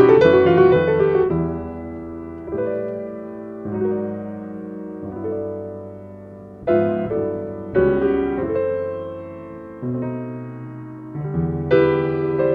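Yamaha grand piano playing a solo tango: chords that ring and fade, softer through the middle, with firmer chords struck about seven and eight seconds in and fuller playing again near the end.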